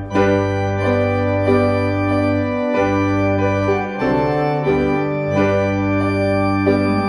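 Organ music: slow, sustained chords over long held bass notes, the chords changing every half second to a second or so.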